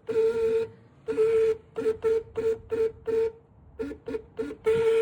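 A 2024 Nissan Versa's horn honked repeatedly: two half-second blasts, a quick run of about ten short taps, then a longer blast at the end. It gives one steady, thin tone that sounds funny, not like a normal car horn: the horn is defective.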